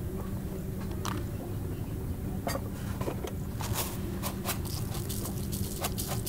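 Garlic cloves and coarse salt dropped into a stone mortar holding green chilies: a scatter of light, sharp clicks and taps, with a steady low hum underneath.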